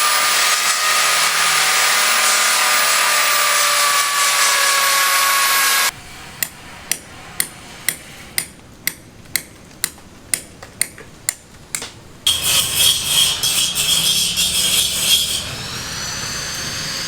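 Building-site work sounds: a power tool runs loudly and steadily for about six seconds and cuts off suddenly, then a hammer strikes about a dozen times at roughly two blows a second, then another power tool runs with a steady high whine, easing into a quieter steady run near the end.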